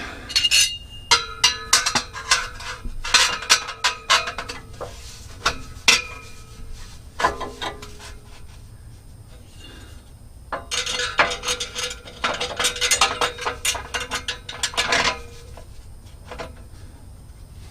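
Metal hand tools and exhaust clamp hardware clicking and clinking in two long runs of quick sharp strikes, with a faint ringing note behind them, while a 15 mm deep socket is put to work on the exhaust clamps.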